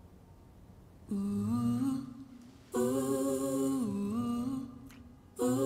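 Background score: a slow, wordless vocal melody of long held notes. It comes in about a second in, and new phrases begin near three seconds and again near the end.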